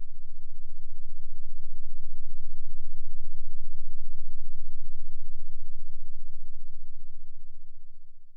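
A deep, steady electronic hum with a fine rapid flutter, swelling in over about a second and fading out near the end, with a faint steady high-pitched whine above it.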